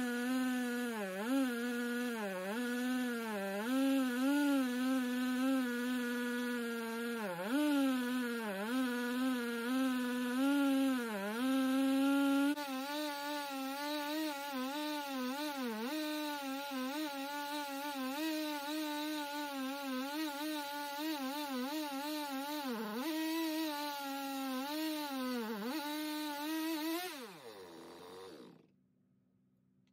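Gas chainsaw with a regular crosscut chain ripping lengthwise through an oak log in an Alaskan-style chainsaw mill, running at high revs with its pitch dipping again and again as it labours in the hard wood. Near the end the engine winds down and stops.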